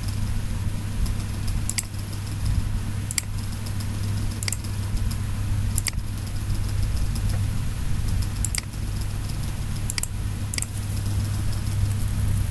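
Computer mouse clicks, about seven single clicks spaced a second or more apart, over a steady low background hum.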